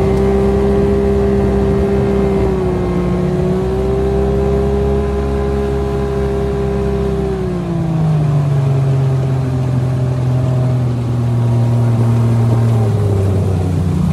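Tiller-steered outboard motor pushing a small aluminium boat, running steadily at speed, then throttled back about seven and a half seconds in so its pitch drops sharply. The revs ease down once more near the end as the boat slows off the plane.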